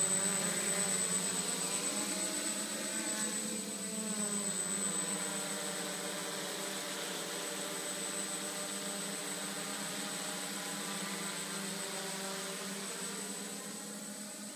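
Electric motors and propellers of a multirotor drone hovering, flying with one of its motors removed. It makes a steady buzzing hum with slowly wavering tones and a thin high whine, and grows gradually fainter.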